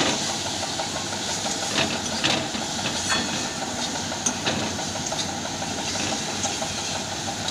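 Steady hiss of a ridge gourd and poppy-seed (posto) mixture cooking in a metal wok, with a few light scrapes and taps of a spatula stirring it.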